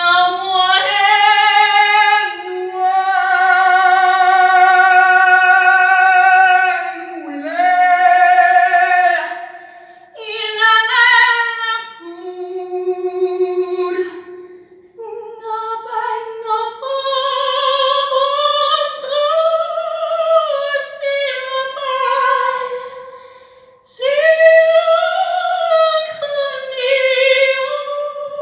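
A woman singing long held notes with vibrato, sliding in pitch between them, with no accompaniment heard beneath the voice.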